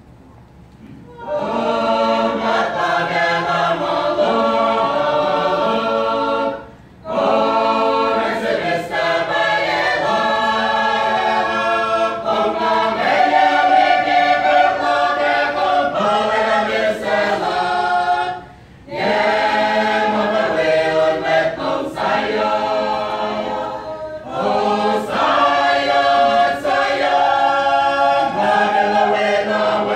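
Mixed choir of women and men singing together in harmony without instruments, in long phrases broken by short pauses for breath.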